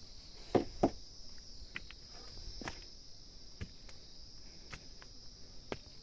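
Steady high-pitched insect chorus, with footsteps on stone and dry ground. Two louder knocks come close together about half a second in, and single scuffs follow every second or so.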